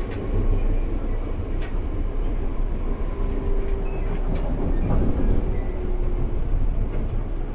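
Electric commuter train running, heard from inside the passenger car: a steady rumble of wheels on rail with a few clicks and a faint steady hum for a few seconds in the middle.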